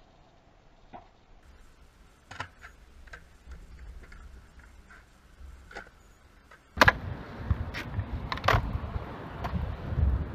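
Skateboard on concrete: faint rolling with scattered clicks of the board. About seven seconds in comes a sudden sharp clack, then louder low rumbling from the wheels with more board clacks.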